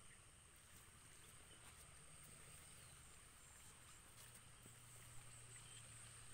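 Near silence: faint outdoor background hiss with a thin, steady high tone and a few tiny ticks.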